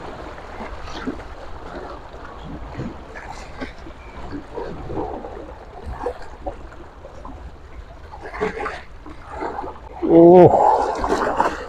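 Choppy sea washing and splashing against breakwater rocks, with wind on the microphone. About ten seconds in, a loud drawn-out voice call with a bending pitch cuts in over it.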